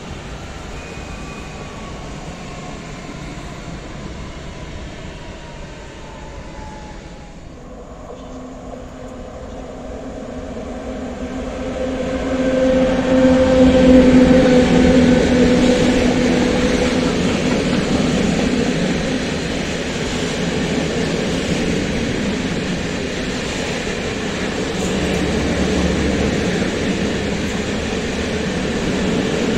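An ET22 electric locomotive passes, loudest about a third of the way in, with a steady hum. It is followed by a long rake of open freight wagons rolling by with a steady wheel rumble. Before it, a faint falling whine of a departing electric train fades away.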